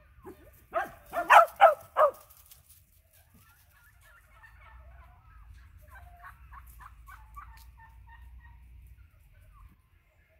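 A small dog barks excitedly at the handler's raised hand: about five quick, sharp barks in the first two seconds. After that comes a fainter, farther-off string of short calls lasting several seconds.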